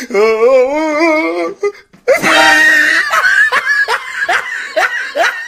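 Loud laughter: a long wavering laugh, then after a short break a loud outburst that breaks into a run of short "ha" pulses, about two a second.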